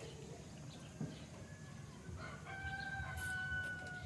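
Rooster crowing: a few short notes about two seconds in, then one long held final note that slides slightly lower.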